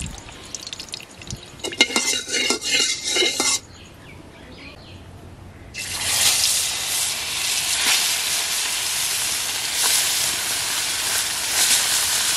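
Pieces of koi fish going into hot mustard oil in an iron kadai: a steady, loud sizzle starts abruptly about six seconds in and keeps going as the fish fry. Before that, a few clinks and knocks of utensils.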